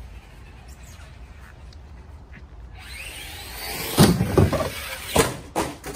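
Brushed electric motor and drivetrain of a Traxxas Slash 4x4 RC short-course truck whining up in pitch as it accelerates, then hard knocks and clatter about four and five seconds in as the truck crash-lands and flips.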